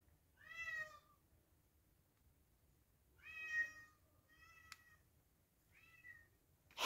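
A domestic cat meowing four separate times, faintly, the second meow the loudest and the last the softest, with a single small click between the third and fourth.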